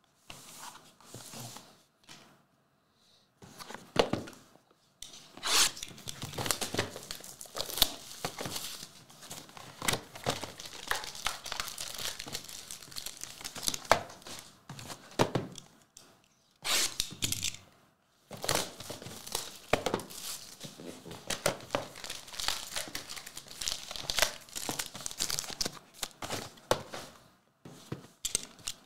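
Plastic shrink-wrap being torn and crinkled by hand off sealed football trading-card hobby boxes as they are unwrapped and opened. It goes in an irregular run of sharp crackles and rips with a few short pauses.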